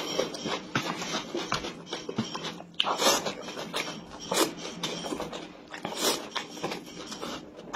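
Close-miked eating: wet chewing and smacking, then instant noodles slurped up in several loud sucking bursts a second or more apart.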